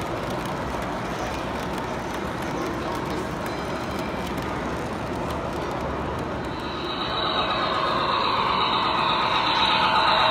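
A model train running on layout track, with crowd chatter behind it. About two-thirds of the way in, the running noise of an approaching model locomotive and its cars builds and grows steadily louder.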